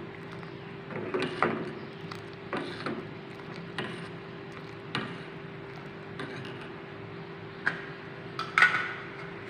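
A utensil clinking and knocking against a cooking pot as spices are added and the tea is stirred: irregular sharp taps about once a second, over a steady hum.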